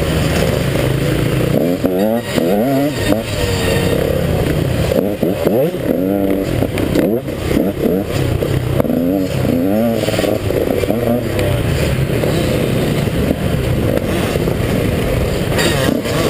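KTM 150 XC two-stroke dirt bike engine revving up and down again and again through the gears, with rattles and knocks from the bike over rough ground.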